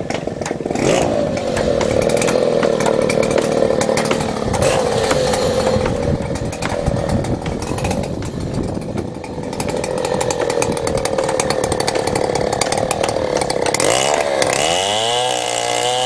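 Two-stroke chainsaw running steadily as it cuts fallen timber. Near the end its pitch swings up and down several times as the throttle is worked.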